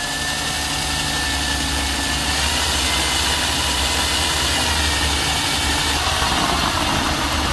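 Cordless drill running steadily with a step drill bit pressed into thin aluminum flashing, a steady motor whine throughout. About six seconds in the sound turns rougher as the bit starts cutting through the metal and throwing aluminum shavings.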